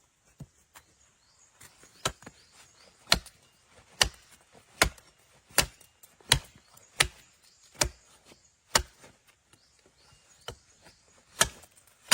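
Wood being chopped with an axe: about nine sharp blows in a steady rhythm, a little under one a second, then a pause and one more blow.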